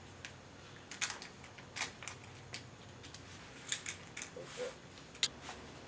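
Irregular light clicks and taps as small wooden snap mousetraps are handled and set, their wire bars and springs clicking against the wood. The sharpest click comes a little after five seconds in.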